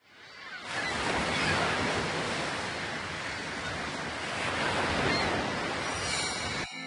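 Ocean surf: a steady wash of breaking waves that fades in over the first second, swells and ebbs slowly, and cuts off suddenly just before the end.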